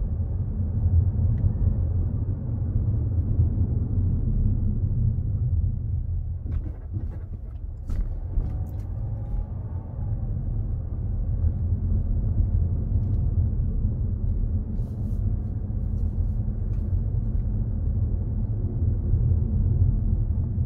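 Car driving slowly, heard from inside the cabin: a steady low rumble of engine and tyres, with a few light clicks around the middle.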